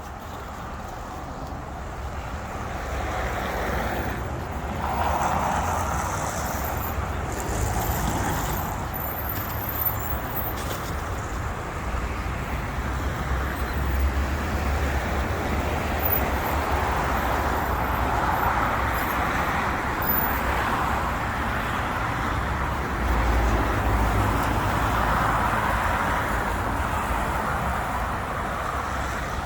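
City road traffic: a steady noise of passing cars and engines that swells and fades as vehicles go by, over a low rumble.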